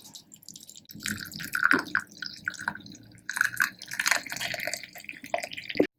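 Hot tea being poured through a strainer into a cup, splashing and trickling in quick irregular spurts, then cutting off suddenly near the end.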